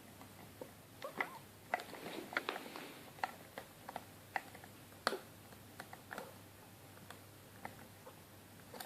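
Faint, irregular metallic clicks of a hook pick working the pin stacks of a Master Lock Pro Series padlock under light tension, the strongest click about five seconds in.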